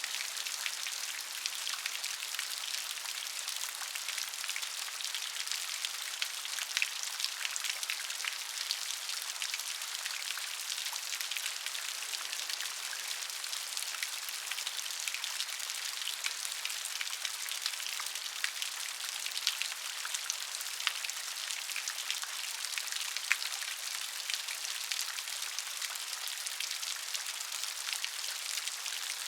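Steady rain falling, a dense hiss full of many small, sharp drop ticks.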